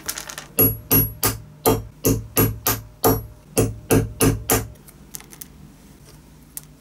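Small hammer tapping the back of a knife blade to chop a thin strip of wood into small square patches on a hardwood workbench: a quick series of about three sharp, ringing knocks a second. The knocking stops about two-thirds of the way through.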